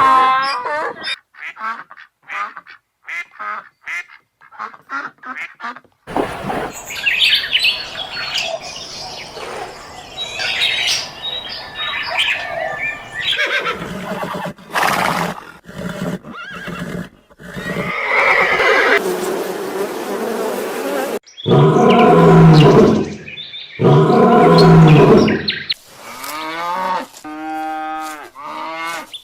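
A series of different farm animal calls, one short clip after another: a run of quick short calls, then a noisier stretch, then two long loud calls followed by a few short repeated calls near the end.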